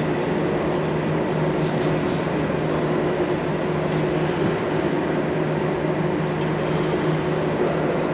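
Steady room tone of a large hall: an even hum with a low constant tone and hiss, with no distinct events.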